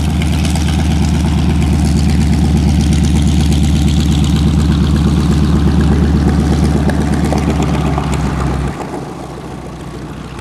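North American SNJ Texan trainer's radial engine running at low power as the aircraft taxis past, then the sound drops off abruptly near the end as it rolls away.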